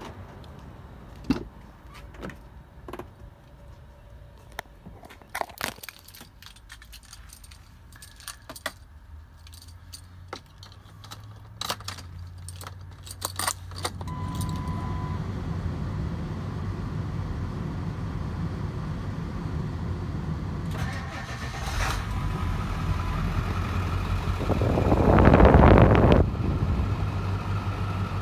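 Keys jangling and door and cabin clicks in the first half, then a short key-on beep and a steady low hum. Near the end the 2001 Ford Excursion's 7.3 L Power Stroke turbo-diesel V8 cranks and fires from cold with a loud burst, then settles into a steady idle.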